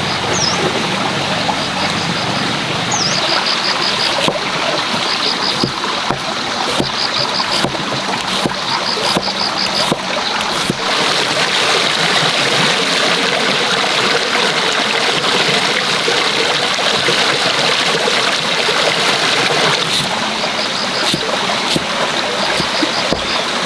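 Steady rushing, water-like noise with scattered clicks and splashes, growing a little louder about halfway through. Short runs of quick high chirps repeat every couple of seconds, dropping out in the middle stretch.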